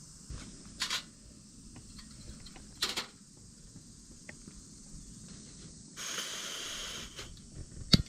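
Portable gas burner being lit: gas hissing from the open valve for about a second, then a sharp igniter click near the end. Earlier there are two short rustles and a few light ticks.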